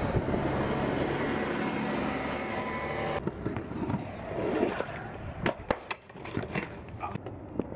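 A city transit bus's engine running close by, steady and loud, for about three seconds. Then a stunt scooter rolls on concrete, with several sharp clacks as its deck and wheels strike the ground.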